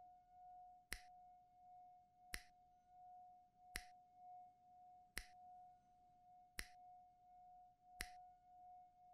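Quiet, sparse sound track: one steady held tone that wavers slightly, cut by a sharp click about every second and a half, six times, like a slow tick.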